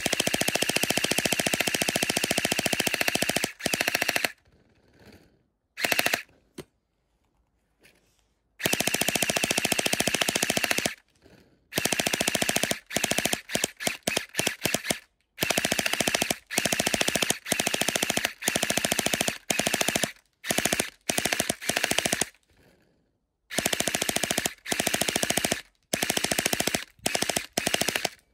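Vasvarn UZI gel blaster firing full auto with its plain orange-tip barrel (silencer removed), shooting gel balls in rapid bursts. A long burst of about three and a half seconds opens, then, after pauses, two longer bursts of two to three seconds, and then a string of short bursts with brief gaps between.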